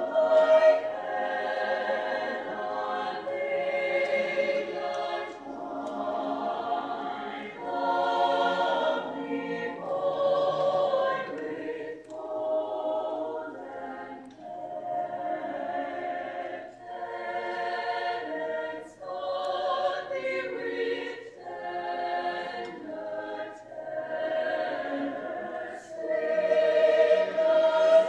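Choir singing a holiday piece in sustained phrases of about two seconds each, with brief dips between them.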